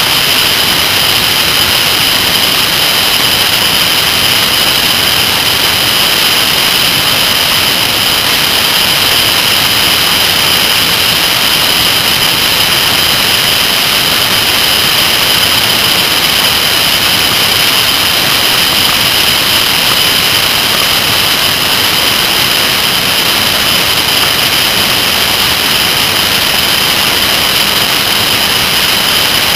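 Kawasaki ZR-7S motorcycle riding at speed: a loud, steady rush of wind over the camera's microphone, with the bike's engine and road noise blended in and no change in level.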